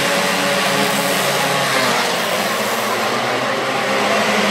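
Small engines of mini motorbikes and karts running on an indoor track, a steady drone that holds at one level.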